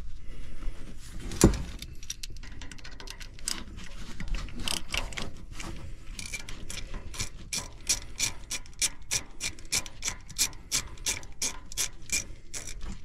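Hand ratchet with a T27 Torx bit clicking as it backs out a screw of the oil filter cover. A single sharp knock about a second and a half in, then a steady run of clicks, about four a second, through the second half.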